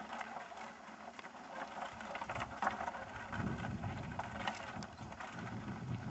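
Horse-drawn wooden carruncho (a rustic drag on log rollers) rattling and scraping over a dirt road, a rough crackle of many small knocks, with a low rumble joining about halfway through.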